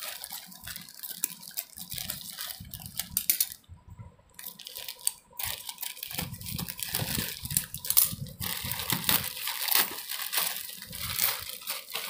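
Plastic courier mailer bag crinkling and rustling as it is handled and cut open with scissors, in a run of short crackles, with a brief lull about four seconds in.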